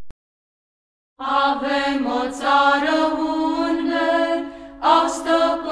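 Near silence for about a second, then a voice begins singing a slow Romanian religious song in a chant style over a steady low held note. The singing dips briefly a little before the end and comes back in.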